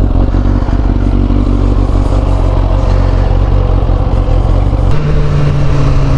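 Suzuki GSX600F's inline-four, fitted with a Delkevic carbon exhaust, running steadily at low revs. About five seconds in, the engine note steps up sharply as the bike pulls away.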